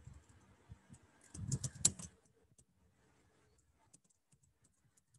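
Typing on a computer keyboard: a quick run of key clicks a little over a second in, then a few scattered faint keystrokes.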